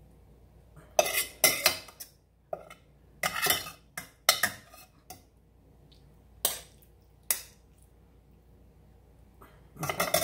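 Metal slotted spoon scraping and knocking against a stainless steel pot while scooping out the last of the cooked cabbage: a string of short clatters, thickest in the first half, two single knocks, then a few more near the end.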